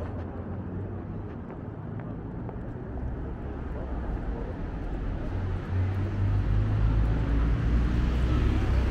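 City street traffic: a steady hum of vehicles, with a low engine rumble building over the last few seconds as a vehicle draws near.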